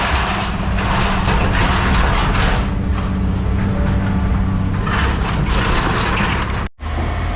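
The diesel engine and hydraulics of a heavy scrap-handling machine run steadily, with two long spells of scrap metal crunching and clattering. The sound cuts out for an instant near the end.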